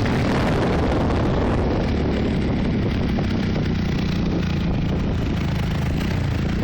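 Trail motorcycle engine running steadily while riding, with wind buffeting the microphone.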